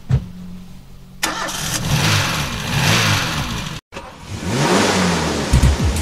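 Car engine sound effect: a sharp hit at the start, then about a second in an engine starts and revs up and down, cuts out briefly just before four seconds in, and revs again.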